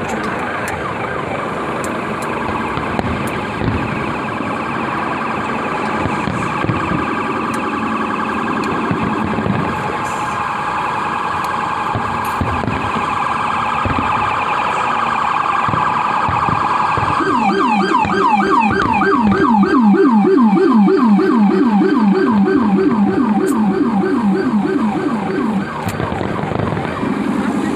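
Emergency vehicle siren wailing, rising and falling slowly, then switching about seventeen seconds in to a fast yelp of about five sweeps a second, its loudest part, which stops shortly before the end. Scattered faint fireworks pops underneath.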